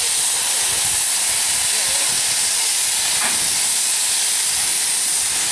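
Steam locomotive venting steam with a loud, steady hiss from its open cylinder drain cocks. A faint knock about three seconds in.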